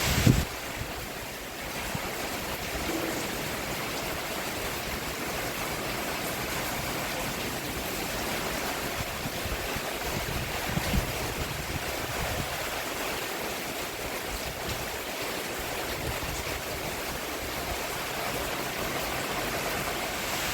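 Steady rain falling on a roof, an even hiss with no let-up. A short thump sounds right at the start.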